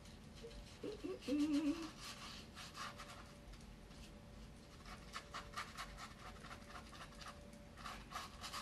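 A stiff, hard-bristle brush scrubbing wet black acrylic paint onto a canvas, a run of short scratchy strokes, then a second run after a pause. A short low wavering hum about a second in.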